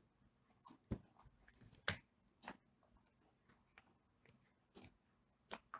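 Faint handling sounds of soap being pushed out of flexible silicone moulds: scattered soft taps, clicks and rustles, with two sharper knocks about one and two seconds in.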